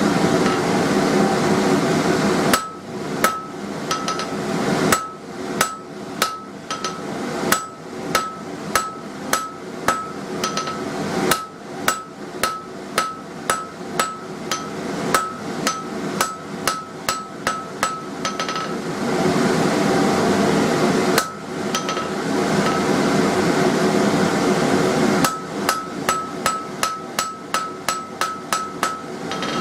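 Hand hammer striking hot square steel bar stock on an anvil to forge a chisel point, each blow with a bright anvil ring, about one and a half blows a second. A steady forge roar fills the opening seconds and a pause in the middle, and the blows come faster, about three a second, near the end.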